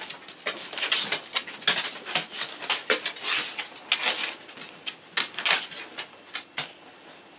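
Cavalier King Charles Spaniel snoring in deep sleep: irregular noisy breaths broken by many short, sharp snorts.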